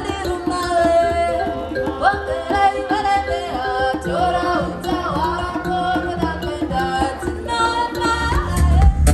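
Music with a singing voice and a gliding melody over hand drums and a steady rhythm. A heavier bass beat comes in near the end.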